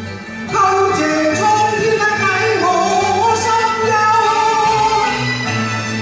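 Cantonese opera (粵曲) duet music: a sliding melodic line with singing over instrumental accompaniment, picking up about half a second in.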